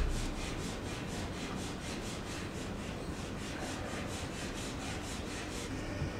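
Wire loop modelling tool scraping modelling clay in quick, even strokes, about four a second, stopping shortly before the end.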